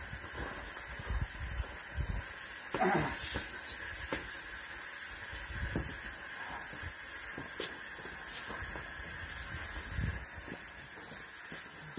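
Steady hiss of an air-fed blowtorch burner heating the cylinder head of a single-cylinder Fairbanks-Morse engine before starting, with scattered light metal clicks and knocks from work on the fuel line.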